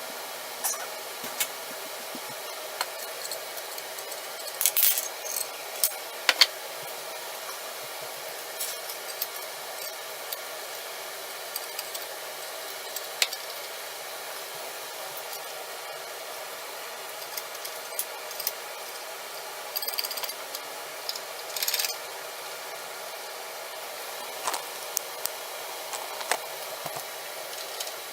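Scattered light clicks, knocks and a brief rub from small tools and containers being handled during cleanup, over a steady hiss.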